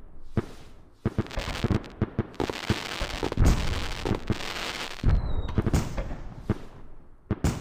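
Fireworks bursting: deep booms, the biggest about three and a half and five seconds in, among sharp pops and crackling.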